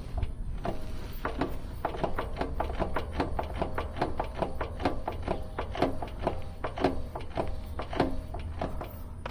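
Steady road rumble and a faint hum in the cabin of a 2012 Scion xB at speed, the hum that the owner puts down to a bad CV axle. Many irregular clicks and taps sound over it throughout.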